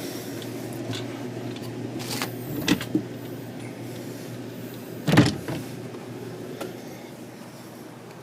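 Sliding screen door being worked, with a few clicks and knocks and one louder thump about five seconds in, over a steady low hum.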